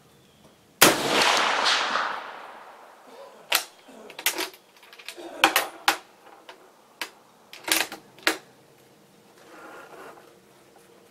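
Swedish M96 Mauser rifle in 6.5x55mm fired once about a second in, the loud report ringing off for over a second. Then a quick run of metallic clicks and clacks as the bolt is worked to eject the spent case and chamber the next round.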